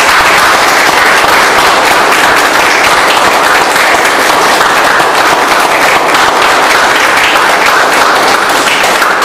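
Audience and panel applauding: steady, dense clapping.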